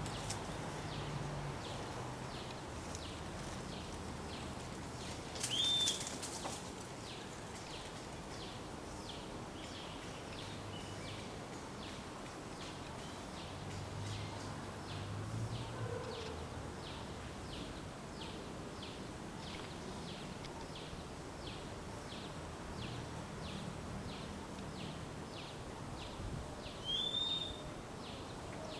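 Outdoor natural ambience: a steady, evenly repeated series of short high chirps, with a louder, brief bird call about six seconds in and again near the end.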